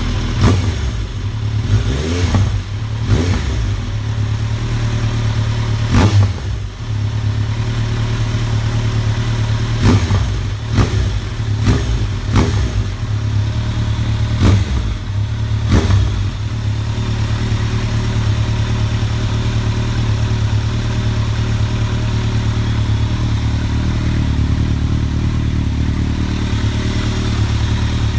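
Kawasaki ZRX1200 DAEG's inline-four engine idling through a Yoshimura titanium Cyclone full exhaust with a LEPTOS Fire Spec muffler. It is blipped about ten times in the first sixteen seconds, each rev rising and dropping quickly, then it settles into a steady idle.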